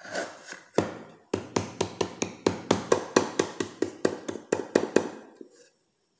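Hands tapping rapidly on the base of an upturned aluminium cake tin resting on a wooden chopping board, about four or five sharp taps a second for some four seconds, stopping near the end. The tapping loosens the set besan milk cake so the tin can be lifted off.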